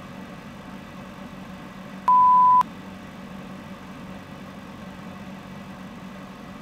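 A single electronic beep, one pure steady tone lasting about half a second, a little over two seconds in, over a steady low hum and hiss.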